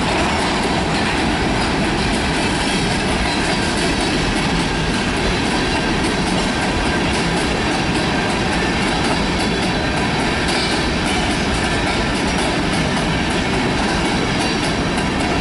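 Covered hopper freight cars rolling past close by: steady noise of steel wheels on the rails with a clatter of wheels over the rail joints.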